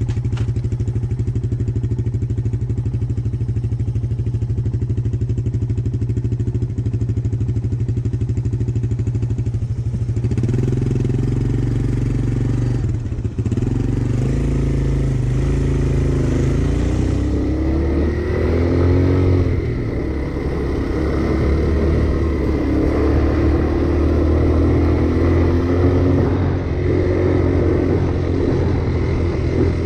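A Honda Fat Cat three-wheeler's engine runs at a steady speed for about ten seconds, changes note, dips briefly, and from about sixteen seconds in revs up and down unevenly, its pitch rising and falling.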